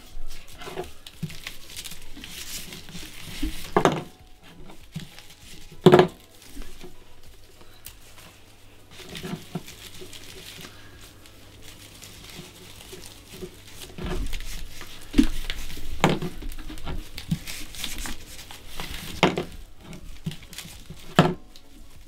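Dried hydrangea flower heads rustling and crinkling as they are pressed and wound onto a straw wreath ring by hand. Several sharp knocks come in between, the loudest about six seconds in.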